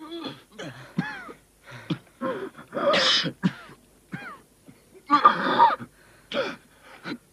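A mud-soaked man coughing, clearing his throat and gasping for breath in a run of short, separate outbursts, the loudest about five seconds in. He is choking after being trapped in a flooding, suffocating tunnel.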